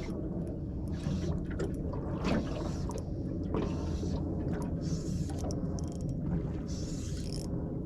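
Small boat's motor running steadily with a low hum, with water washing and splashing against the hull.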